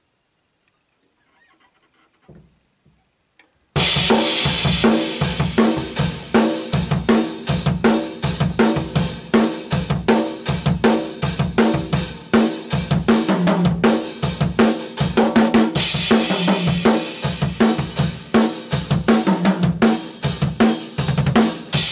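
A rock drum kit is played hard, with bass drum, snare and cymbals, in a fast, dense beat. It starts abruptly about four seconds in, after near silence with a few faint taps.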